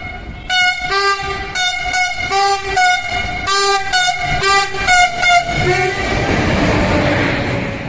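Diesel locomotive's air horn sounded in a rapid series of about a dozen short blasts at two pitches, a train driver's horn greeting. About six seconds in, the horn stops and the rushing noise of the passing train takes over.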